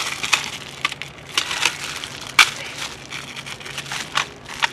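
Packaging crinkling and crackling as it is handled and pulled off a small item, with scattered clicks. The sharpest click comes about halfway through.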